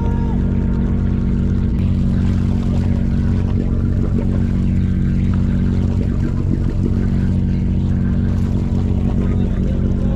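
Fishing charter boat's engine running steadily, a constant low hum.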